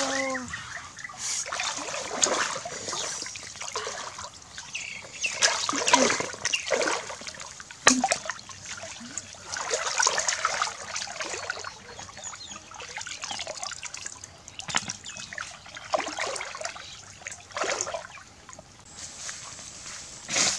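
Water splashing and sloshing as people wade in a shallow stream and grope through it by hand, catching snails; irregular splashes and trickles, with one sharp splash about eight seconds in.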